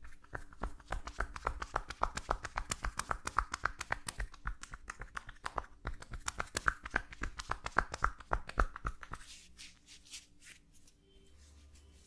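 Hands rapidly and rhythmically tapping a person's shoulder through clothing, in percussive tapotement massage. The taps stop about nine seconds in, leaving faint rustling.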